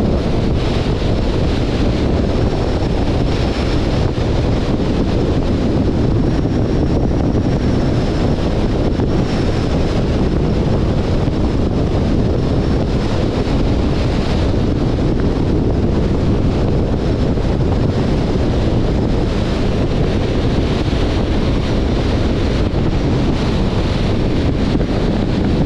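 Steady wind rushing over the microphone of a camera on a moving car, mixed with low road and tyre noise.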